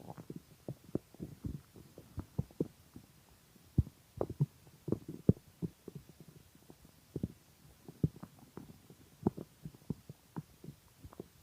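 Hungry stomach gurgling: a string of irregular soft pops and bubbling clicks, with a fuller gurgle about four to five seconds in.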